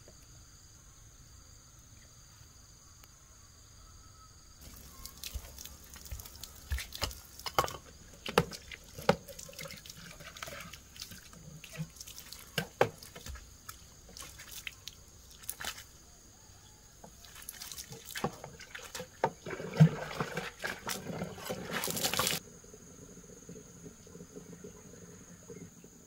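Water splashing and pouring in an irregular run with sharp knocks, starting about five seconds in, heaviest near the end and cutting off suddenly, as vegetables are watered. Crickets chirp steadily throughout.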